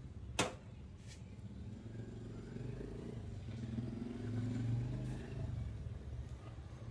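A motor vehicle's engine rumbling past, swelling to its loudest about two-thirds of the way through and then easing off. There is a sharp click just after the start.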